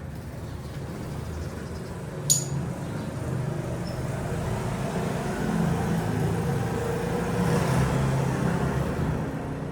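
A motor vehicle engine running, growing louder and then easing off as if passing by, with one sharp click a couple of seconds in.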